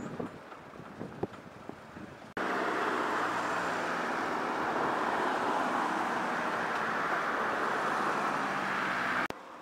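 Steady road traffic noise from cars driving along a town street, starting abruptly about two seconds in and cutting off just before the end. Before it there is quieter outdoor ambience with a few faint knocks.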